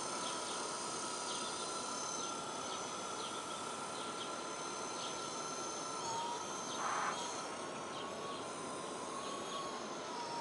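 Small quadcopter drone flying high overhead, heard as a thin, distant whine whose pitch starts to waver about six seconds in as the motors change speed. Faint short chirps sit over an even outdoor hiss.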